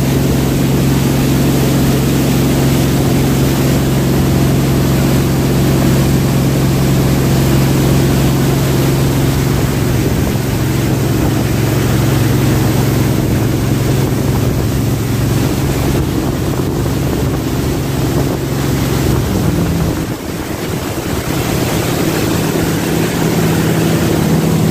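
Jet boat's engine running steadily over the rush of water and wind. About twenty seconds in, the engine note dips briefly and comes back at a higher pitch.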